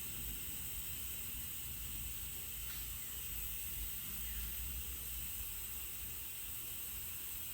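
Steady background hiss with a low hum underneath, and one faint click about three seconds in.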